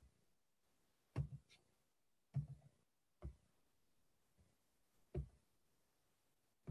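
Near silence on an online call, broken by about five short, faint sounds spaced a second or two apart.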